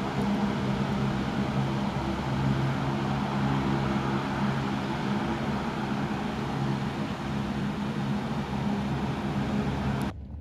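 Turboprop airliner's engines running steadily, a drone with several low steady hum tones over a broad hiss. It cuts off suddenly near the end.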